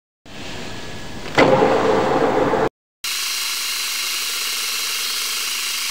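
Manual metal lathe spinning a metal workpiece and cutting it, heard in two short stretches with a brief gap between them. The first grows louder, with a sudden jump about a second and a half in. The second is a steady high-pitched cutting hiss.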